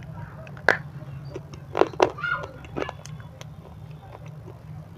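Close-miked bites and crunching into a hard white chunk sold as 'crunchy stone': four sharp cracks within the first three seconds, the loudest two about two seconds in, then softer crackling chews. A steady low hum sits underneath.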